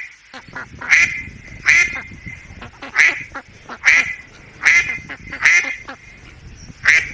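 A duck quacking repeatedly: short single quacks, about one every second, over a faint low rumble.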